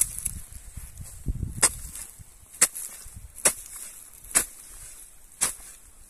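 Spade blade chopping into a clod of soil and elecampane roots: five sharp strikes about a second apart.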